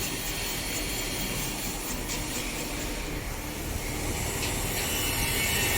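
Collet-type punch grinder running: the grinding wheel spinning and the collet head turning, a steady hissing whir with faint high whines, growing a little louder toward the end. The wheel is not yet grinding the bar.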